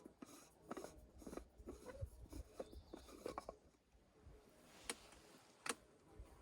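Faint handling noises: scattered light clicks and taps, then two sharper clicks near the end.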